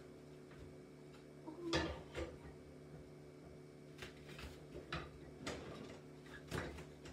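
Kitchen things being handled at a counter: about half a dozen knocks and clatters, the loudest about two seconds in, over a steady low hum.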